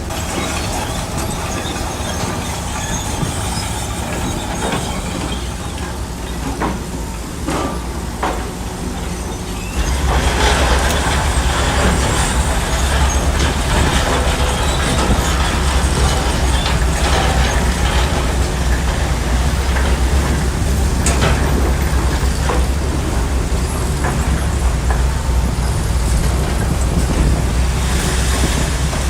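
A bulldozer's diesel engine runs steadily, then rises to a louder, heavier note about ten seconds in as it takes on load. A few sharp metallic clanks come through along the way.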